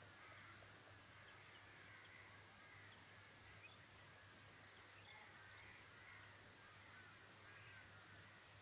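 Near silence outdoors: faint bird calls over a low steady hum.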